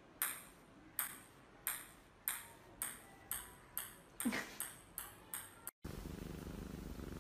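A run of about a dozen bright ringing pings, each dying away, coming closer and closer together. Just before the end the pings cut off suddenly and a steady low purring takes over.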